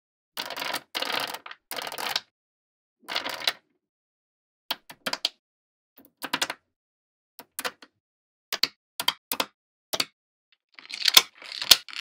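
Small metal magnetic balls clicking and clattering as strips of them are snapped onto a sheet of balls. The sound comes in irregular bursts of sharp clicks, with longer rattles in the first two seconds and again near the end.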